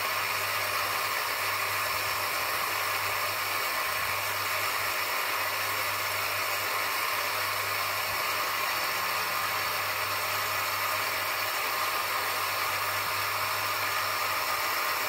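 Electric bench grinder running steadily with a constant hum and whir while a small nagasui (Klawing) stone cabochon is polished against its spinning wheel.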